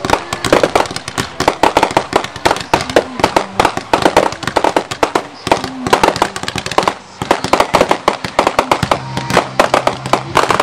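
Fireworks display: a dense barrage of aerial shells bursting and crackling, many overlapping bangs a second with hardly a pause.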